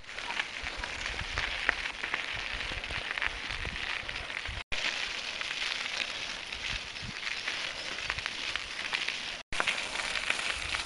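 Bicycle tyres rolling over a gravel forest track: a steady crackle of grit and small stones under the wheels. The sound drops out for an instant twice, about a third and about four-fifths of the way through.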